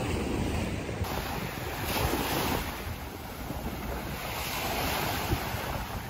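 Small waves breaking and washing up a sandy beach, with wind buffeting the microphone. One wash swells a little louder about two seconds in.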